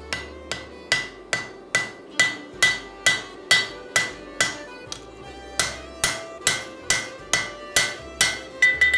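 Hand hammer striking hot steel on an anvil as an axe head is forged by hand: a steady run of blows about two a second, each ringing briefly, with a short pause about five seconds in.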